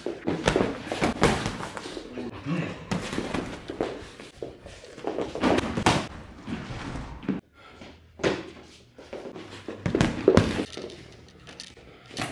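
Boxing-glove punches landing with dull thuds in irregular flurries during a sparring exchange, mixed with shoes stepping and stamping on a wooden floor.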